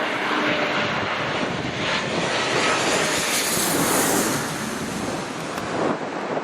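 Jet airliner passing low overhead, the rush and high whine of its engines swelling to a peak about halfway through and then fading.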